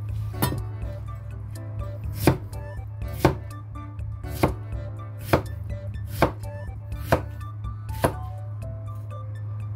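Cleaver chopping cucumber on a wooden cutting board: about eight sharp chops, roughly one a second. Background music plays underneath.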